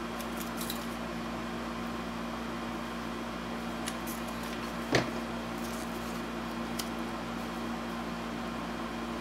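Steady low hum with a few light clicks of small parts being handled on a workbench, and one sharper tap about five seconds in.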